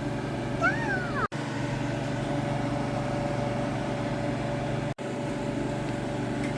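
Steady low mechanical hum, broken twice by a sudden brief dropout to silence. About half a second in there is one short high-pitched squeal that rises and falls, typical of a small child's voice.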